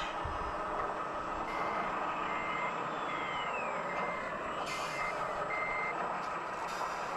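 Reversing beeper of a radio-control scale truck's sound module, a steady run of single-pitch beeps a little over one per second, starting about a second and a half in and stopping near the end. Two falling whistles sound over it in the middle, with a steady background whirr throughout.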